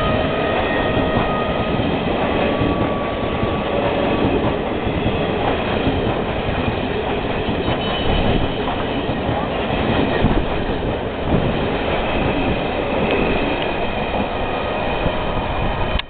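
Passenger coaches of the Howrah–Yesvantpur Duronto Express running past at speed close by: continuous wheel-on-rail noise, loud and steady, with a few faint high steady tones above it.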